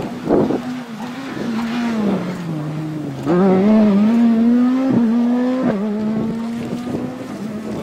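Škoda Fabia S2000 rally car's engine, its note sinking as it slows for a corner, then about three seconds in it jumps louder and climbs as the car accelerates hard out of the corner. Two sharp cracks come about five seconds in, and the sound fades as the car pulls away.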